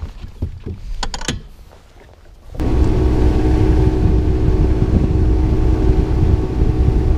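A few knocks as a person moves across a bass boat's deck and sits at the console. About two and a half seconds in, the outboard motor comes in loud and steady as the boat runs, with a steady engine tone over a heavy low rumble.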